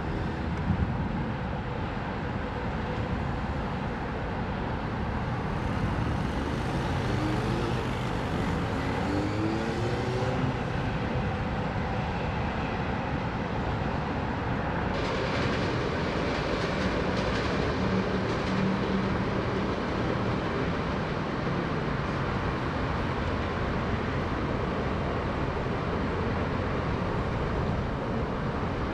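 Steady hum of heavy road traffic on a multi-lane highway, with individual vehicles passing, one louder pass with rising hiss about halfway through.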